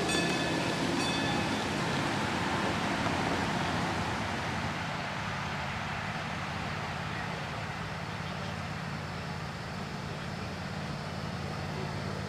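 A miniature passenger train rolls past with a few clicks from its wheels over the rail joints. Then a steady low hum comes from a diesel-outline miniature locomotive's motor as it approaches on 7.5-inch-gauge track.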